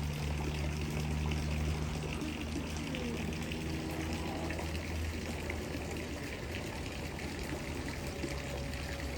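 Steady trickling, pouring water, with a low hum underneath.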